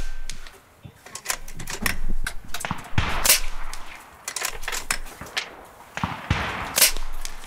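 AGT Vulcan 3 .22 PCP air rifle firing: two sharp shots a few seconds apart, about three seconds in and near the end, with lighter mechanical clicks of the action in between.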